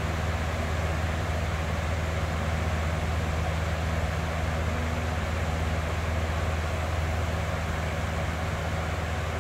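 Box fan running steadily: a continuous rush of moving air over a low motor hum.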